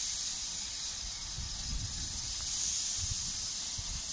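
Steam locomotive hissing steadily as it lets off steam, the hiss swelling and easing, with gusts of wind rumbling on the microphone.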